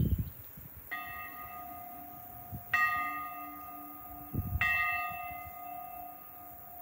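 A church bell struck three times, slowly, about two seconds apart. Each stroke rings on and fades under the next. The same bell's tones return with every stroke.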